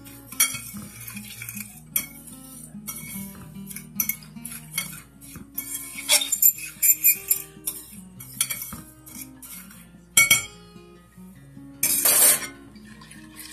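Metal fork clinking and scraping against glass pie dishes while seasonings are mixed in, with two louder scrapes near the end. Soft background music plays underneath.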